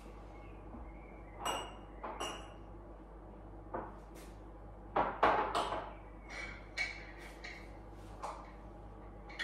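Kitchen-counter clatter: a string of irregular clinks and knocks of dishes, glassware and containers being picked up and set down, a few ringing briefly, the loudest cluster about halfway through.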